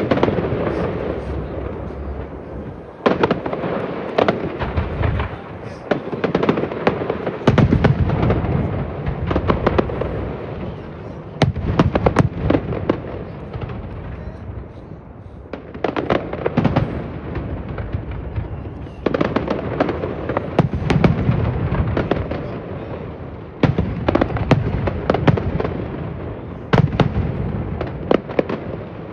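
Fireworks display: shells bursting in rapid clusters of sharp bangs every few seconds, with crackling and rumbling between the volleys.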